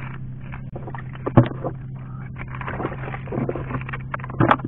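Knife blade scraping and clicking against kagotkot shells and porous rock as the shells are pried off, with two sharp knocks, one about a second and a half in and one near the end. A steady low hum runs underneath.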